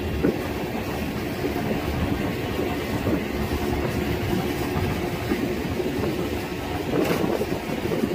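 A boat's engine running steadily as the boat moves through the water, with water noise along the hull.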